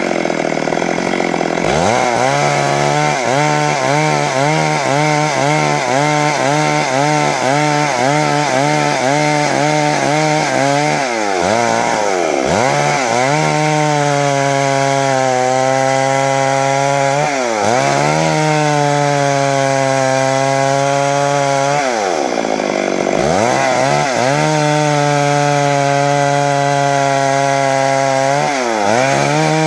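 Stihl MS 382 two-stroke chainsaw running at high revs while ripping a log lengthwise. Its pitch dips and climbs back several times as the chain loads in the cut and the throttle eases. The pitch wavers quickly in the first third.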